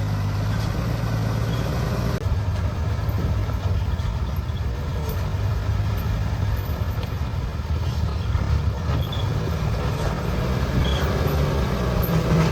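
Heavy diesel engine running steadily with a low hum, its note shifting slightly about two seconds in.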